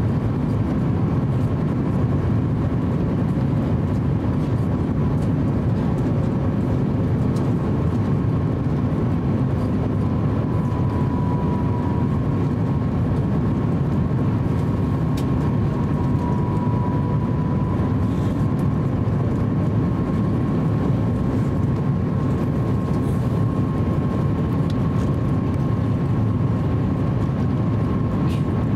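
Cabin noise of an Airbus A350-900 on final approach, heard from a window seat by the wing: a steady low rumble of airflow and the Rolls-Royce Trent XWB engines at approach power, with a faint steady high whine on top.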